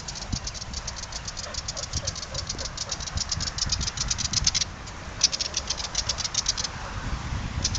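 A bird's rapid, high-pitched rattling chatter of about ten clicks a second, in two long runs broken by a short pause, with a third run starting near the end, over low rumbling wind or handling noise.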